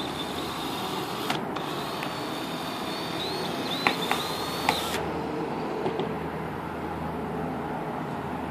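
Cordless drill driving a small screw into the rim of a metal mint tin to fix the lid: the motor whines in two runs with a short break about a second in, the pitch sliding as it loads, with a few sharp clicks near four seconds, then stops about five seconds in.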